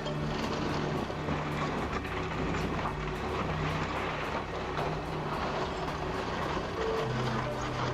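Heavy machinery running steadily: a diesel engine's steady drone under a dense, rough mechanical noise, with no pauses.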